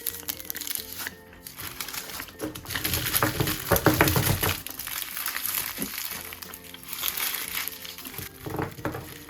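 Candy wrappers crinkling and rustling as chocolates are unwrapped, loudest about three to four seconds in and again near the end, over steady background music.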